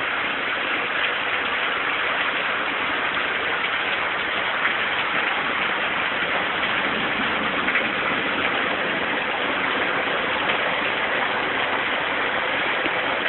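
Rain falling steadily: an even, unbroken hiss with a faint patter of drops.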